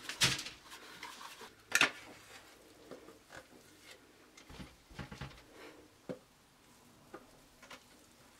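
Spatula scraping and knocking cookie dough out of a stainless-steel Thermomix mixing bowl. There are two sharp clanks near the start, then softer, scattered scrapes and taps.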